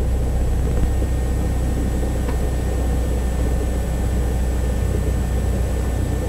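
Steady drone of a light single-engine airplane's piston engine and propeller at low power, heard inside the cabin.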